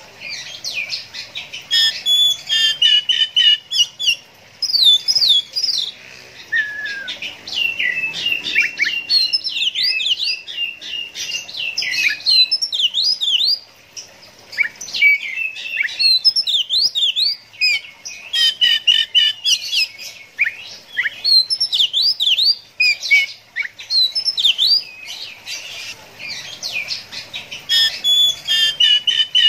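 Oriental magpie-robin singing a long, varied song of rapid whistled notes and sweeping phrases, in runs broken by short pauses.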